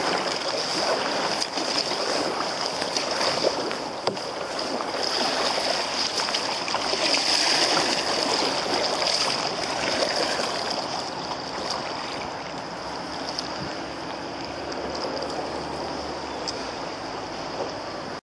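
Fast river current rushing and splashing around an open canoe's hull, heard from on board. It grows louder about halfway through and eases off toward the end.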